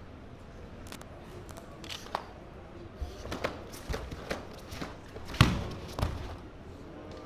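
Sharp snaps of a karate gi and bare feet striking a foam competition mat as a kata is performed, several quick strikes spread out. About five and a half seconds in comes a heavy thump as the performer drops onto the mat, and another follows half a second later.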